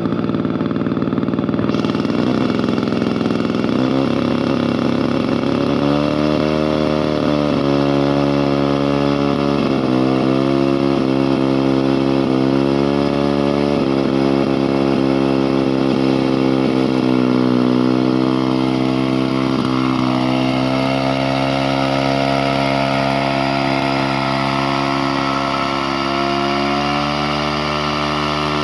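Engine of an antique Rinco A chainsaw running, its pitch rising and dipping again and again. It fires unevenly for the first few seconds before settling into a steady run.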